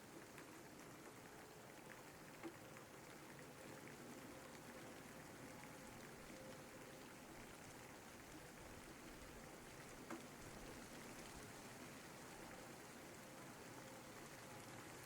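Faint, steady rain hiss with no letup. Two sharper single taps stand out, one about two and a half seconds in and another about ten seconds in.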